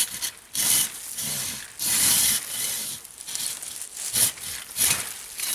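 Silky Katanaboy 650 folding saw cutting a small tree stem: a run of back-and-forth saw strokes through the wood, with its noise rising and falling with each stroke.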